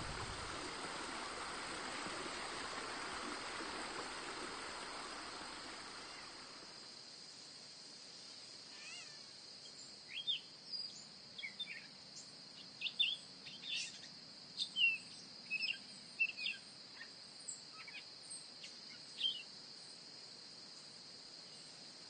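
Evening outdoor nature ambience. A soft rushing noise fades out over the first six seconds or so, and a steady high insect trill runs underneath. Short bird chirps come in a scattered run from about ten to nineteen seconds in.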